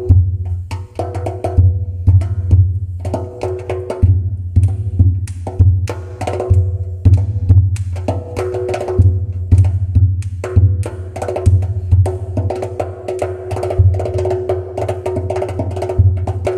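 Rhythmic percussion music: quick clicking and knocking hits over a pulsing low bass, with a held tone running through the middle range.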